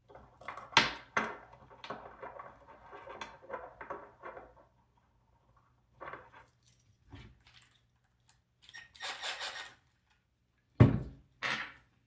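Small metal hardware and tools being handled during assembly: screws and nuts clinking and rattling, with scattered light knocks and a sharp knock near the end that is the loudest sound.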